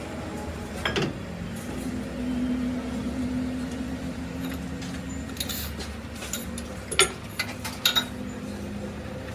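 A workshop machine's motor hums steadily. A sharp metal clink comes about a second in, and a cluster of clinks and taps follows in the second half.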